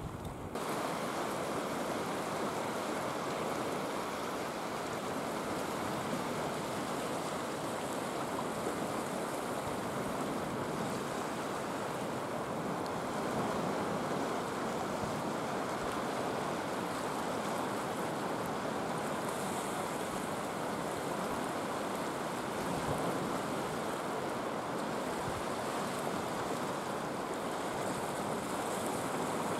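Sea waves washing and breaking over low rocks: a steady rushing surf noise that grows louder about half a second in.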